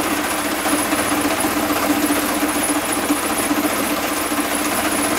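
Small petrol engine running steadily at speed, powering a cassava grating machine: a steady hum under a dense mechanical rattle.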